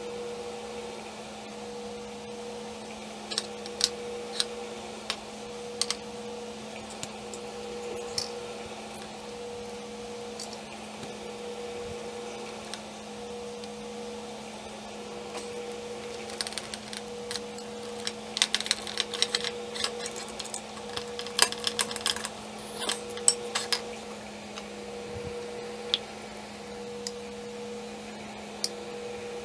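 Metal gears and small parts of a KitchenAid mixer's gearbox clicking and clinking against the housing and a metal workbench as they are handled and fitted. There are scattered clicks, with a busier run of clinks past the middle. A steady hum and a faint tone pulsing about once a second run underneath.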